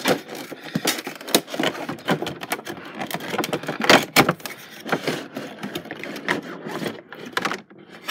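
Crinkling and crackling of a Funko Pop box's clear plastic insert and cardboard as it is pulled out of the box, with irregular rapid clicks and a few sharper snaps of plastic and card.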